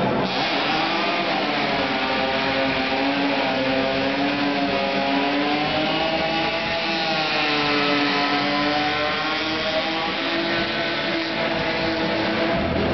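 Drift car's engine held at high revs, its pitch slowly rising and falling as the car slides sideways in a cloud of tyre smoke, over a steady hiss.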